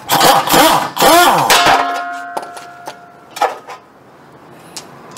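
A metal brake caliper clanks and scrapes against a metal pot, and the pot rings with a clear tone for about a second. A second knock comes a little past halfway, and a small click near the end.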